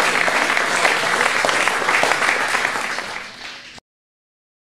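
Audience applauding, fading down after about three seconds and then cutting off suddenly to silence.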